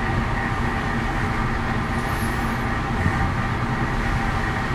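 Steady mechanical hum and rumble with a few fixed tones running through it, unchanging throughout.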